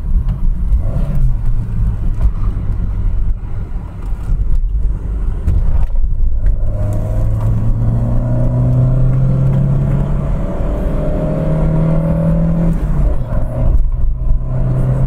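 Renault Megane Coupe's engine accelerating away from a tight bend, its pitch rising steadily for several seconds, holding, then dipping and settling near the end, over constant road and wind rumble.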